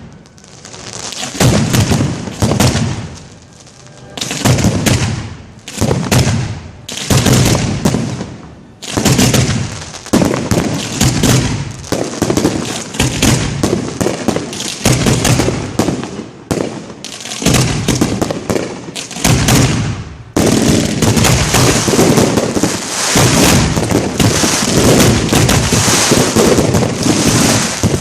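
Fireworks display heard close to the firing site: shells launching and bursting in loud blasts every second or two, then a dense, continuous barrage of bangs and crackling from about 20 seconds in.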